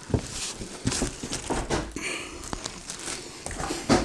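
Cardboard box scraping and plastic wrapping crinkling as a bagged appliance is pulled out of its box, with scattered knocks and rustles.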